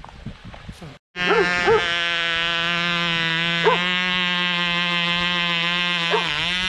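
Small glow-fuel engine of a Cox model helicopter running flat out with a high, steady buzz, starting about a second in. Its pitch sags briefly a few times.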